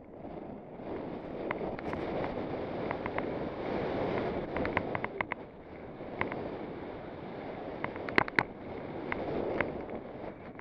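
Snowboard sliding through snow with wind rushing over a helmet-mounted camera, the noise swelling and fading. Sharp clicks and ticks are scattered throughout, with a loud cluster about eight seconds in.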